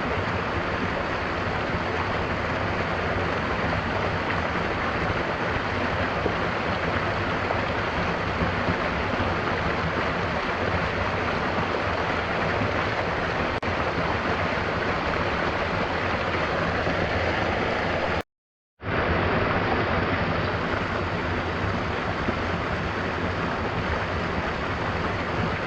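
Steady rushing water of a waterfall and stream, an even unbroken roar. About three-quarters of the way through it cuts out to silence for about half a second, then resumes.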